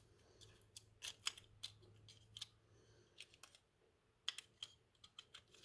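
Light, irregular clicks and taps of small diecast model car parts being handled and pushed into place, the loudest about a second in and again past four seconds.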